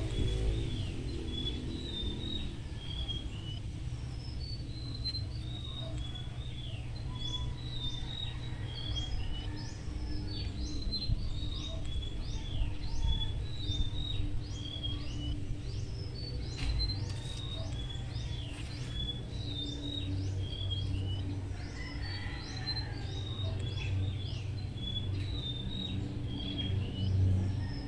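Small birds chirping: repeated short high notes and quick falling whistles, several a second, over a steady low rumble.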